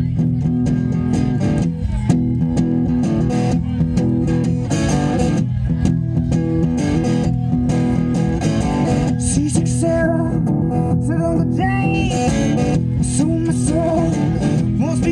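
Acoustic guitar strummed in a steady rhythm in a live performance, over sustained low notes.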